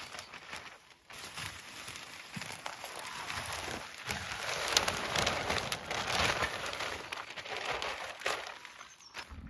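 Irregular rustling and crackling from hands working soil and plants while planting, louder in the middle.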